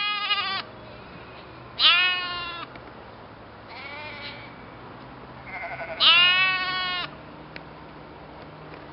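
Sheep bleating four times, each call lasting about half a second to a second; the second and fourth calls are the loudest and longest, the third is fainter.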